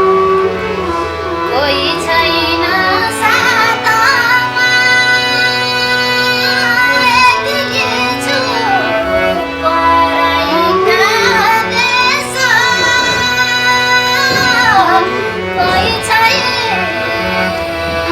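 Live Nepali folk song music: a high melody of sliding, ornamented notes over a steady low accompaniment.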